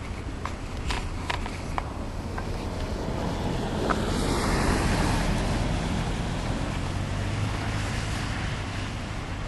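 A vehicle passing: a rushing of tyre and road noise that swells to a peak about halfway through and slowly fades. A few sharp clicks in the first couple of seconds.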